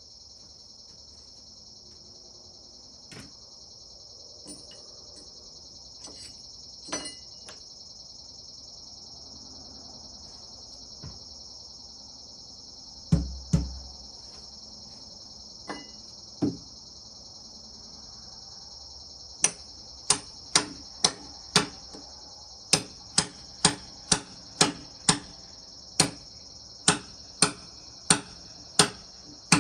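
Steady chirring of crickets and other night insects, with scattered knocks early on. From about two-thirds of the way in comes an even run of sharp hammer blows, a little under two a second, typical of knocking a log dog into a log on the sawmill.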